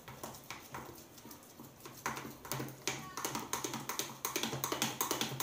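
Slime being stirred in a bowl: rapid, irregular sticky clicks and squelches, over a faint steady low hum.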